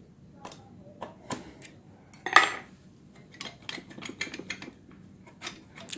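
Light metallic clicks and clinks as a finned aluminium 58.5 mm cylinder block is slid down its studs over the piston of a Yamaha Mio scooter engine, the piston rings being pressed into the bore by hand. One sharper clink comes about two seconds in, with a run of small ticks a little later.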